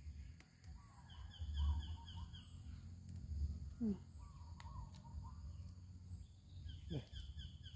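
Birds calling: runs of short, quick, high chirps that come and go several times, and a few short falling calls, over a low rumble. Faint snaps of chili stems being plucked by hand.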